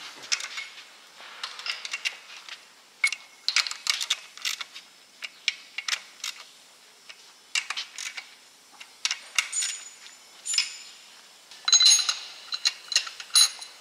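Hand tools and steel engine parts clicking and clinking during assembly work on the cylinder heads of a Scania V8 16-litre diesel, in irregular sharp taps, with a cluster of ringing metallic clinks near the end.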